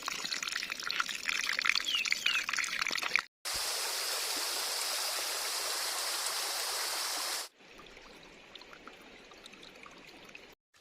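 Running stream water in three clips cut together. The first has a dense crackle of clicks over the flow, the second a steady, louder rush, and the last a quieter flow with a few ticks.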